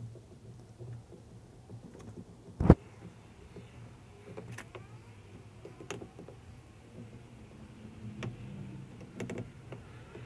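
Aerosol can of expanding foam being dispensed around pipe ends in short, faint squeaky sputters, with a few sharp clicks and knocks, the loudest about two and a half seconds in.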